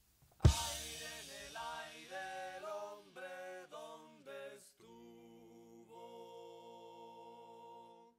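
One hard drum-and-cymbal hit with a ringing tail, then voices singing a short phrase of changing notes that settles into a held chord and cuts off near the end.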